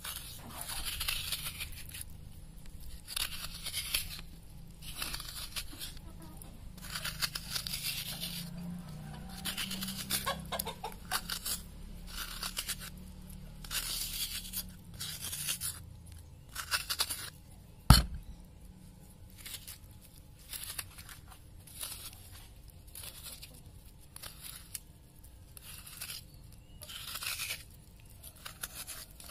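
A metal spoon scraping soft kopyor coconut flesh out of a half shell, in repeated scraping strokes every second or two. One sharp knock comes about two-thirds of the way through.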